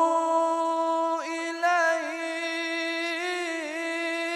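A man singing an Islamic ibtihal, a devotional supplication to God, unaccompanied. He holds one long melismatic note, breaks off briefly about a second in, then carries on with small ornamental turns in pitch.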